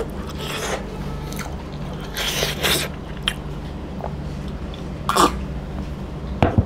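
A man's breathy mouth and throat noises between bites, a sip from a glass of cola about four seconds in, and a sharp knock near the end as the glass is set down on the wooden table. A steady low hum runs underneath.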